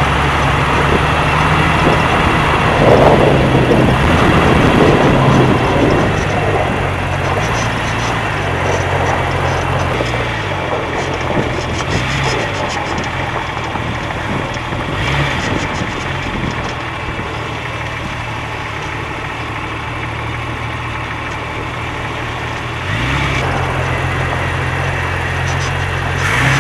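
Jeep TJ driving, heard from under the front axle: the engine and drivetrain run under a steady rush of tyre and road noise. The engine note steps up and down in pitch several times and rises again near the end. The front-axle clicking that is being hunted does not show.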